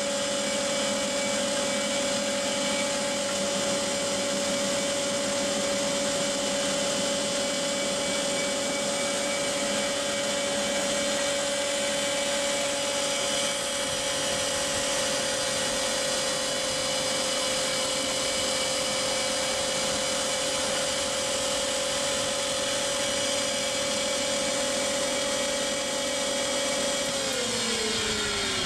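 HolzMann HOB 305PRO planer-thicknesser running steadily with a constant whine. Near the end it is switched off and the whine falls in pitch as the cutter block spins down.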